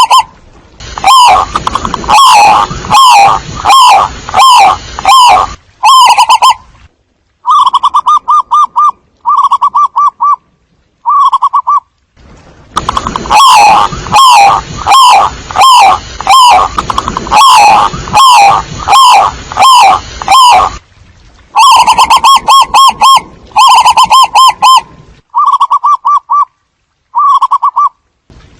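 Zebra doves cooing loudly: long runs of rapid, repeated staccato coos alternate with shorter trilled bursts, the calls pausing briefly every few seconds.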